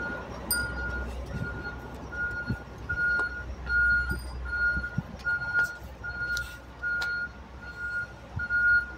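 A lorry's reversing alarm beeping at an even pace, about one and a half beeps a second, over the low rumble of its engine as it backs in, with a few short knocks.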